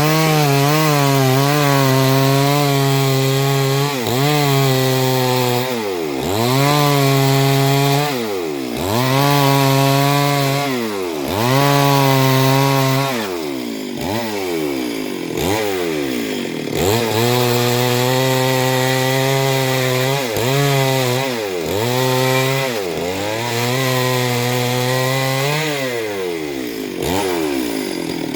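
Two-stroke chainsaw cutting into Gamhar wood. The engine holds a steady pitch under load, and about a dozen times the throttle is let off and the pitch falls before it revs back up.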